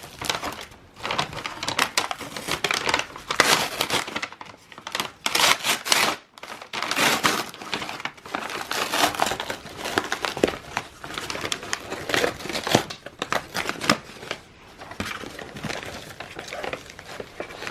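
Plant packaging being unwrapped by hand: irregular crinkling and rustling as the wrapping layers are pulled and crumpled, with a short break about six seconds in.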